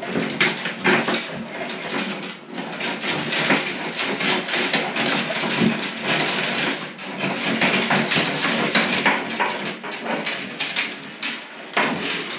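Cable-draw rods being pushed and jiggled through a plasterboard ceiling void: continuous scraping and rustling with many small knocks and clicks as the rods rub the board and joists.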